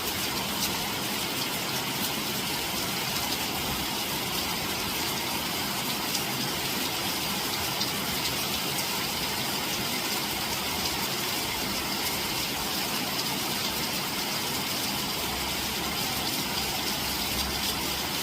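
Rain falling steadily: an even hiss with the occasional sharper drop hit.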